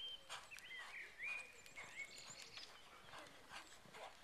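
Faint outdoor birdsong, a series of short arched chirps in the first couple of seconds, over the soft irregular thuds of a pony's hooves cantering on an arena surface.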